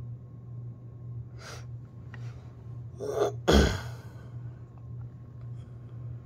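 A soft breath about a second and a half in. Near the middle comes a quick intake of breath, then a short, sharp, sneeze-like burst of air with a low thump, the loudest moment. A steady low hum runs underneath.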